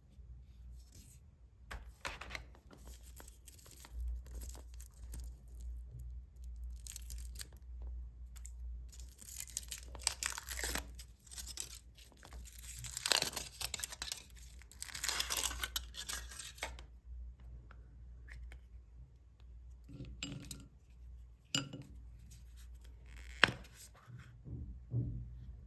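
Foil wrapper of a chocolate surprise egg being torn and crinkled open in repeated rustling bursts, followed by a few sharp clicks and knocks in the last few seconds.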